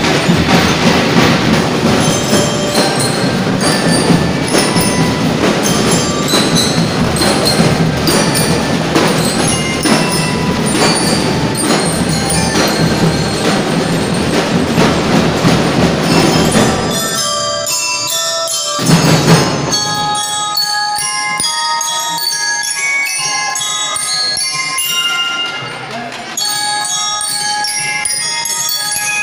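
Drum and lyre band playing: drums and bell lyres together for the first two-thirds, then the drums drop out and, after a single loud hit, the bell lyres carry the melody alone in clear ringing notes.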